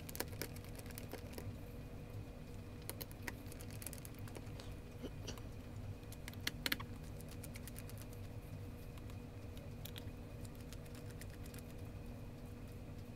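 Faint scattered clicks and ticks of a small screwdriver backing out the tiny screws of a Pentax 645 lens's rear mount, with a couple of sharper clicks about six and a half seconds in, over a faint steady hum.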